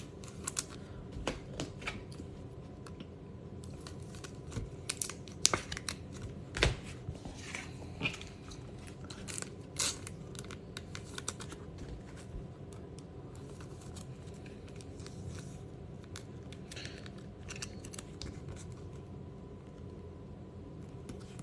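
Baseball card packs and cards being handled: short crinkles, tears and clicks of foil wrappers and card stock, busiest in the first half, over a faint steady hum.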